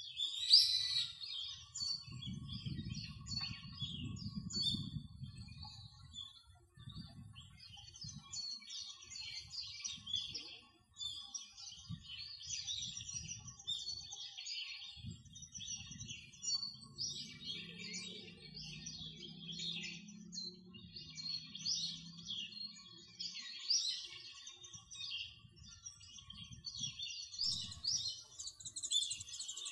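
Small birds chirping over and over, with a low rumble coming and going underneath. Near the end a high, steady buzzing joins in.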